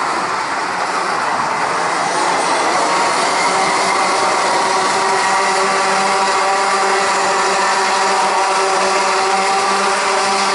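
A pack of Rotax Max 125 cc two-stroke racing karts running at speed together: a steady, layered buzz of many engines at slightly different pitches.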